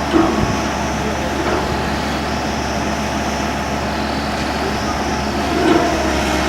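Tata Hitachi excavator's diesel engine running steadily, with two brief louder swells, one just after the start and one near the end.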